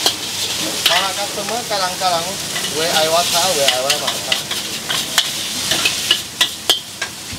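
Char kway teow frying in a hot wok: steady sizzling, with a metal spatula scraping and clanking against the wok many times.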